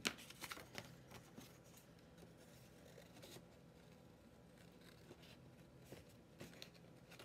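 Faint snips of small scissors cutting through scrapbook paper, with a cluster of short sharp clicks in the first second.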